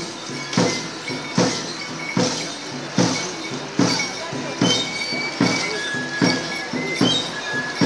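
Yumbada dance music: a drum beaten steadily, about one beat every 0.8 s, under short high pipe notes, the traditional pingullo-and-drum accompaniment for the yumbo dancers.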